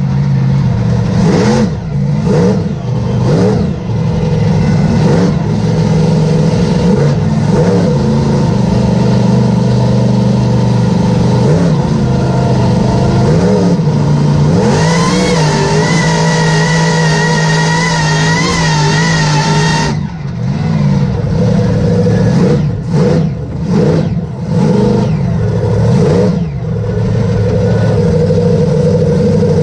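Mega truck's engine revving hard, heard from inside its cab, rising and falling in pitch again and again. About halfway through it holds steady at high revs for about five seconds, then drops back into quick rises and falls.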